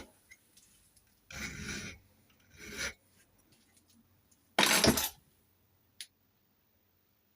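A hand file rasps on a cut-down lever-lock key blank in three separate strokes, tapering the cuts during impressioning. The third stroke, about two-thirds of the way in, is the loudest, and a single short click follows.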